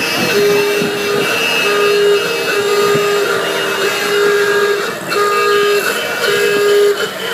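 A horn honked in a regular series of one-pitch blasts, each a little under a second long, about one a second, over crowd noise.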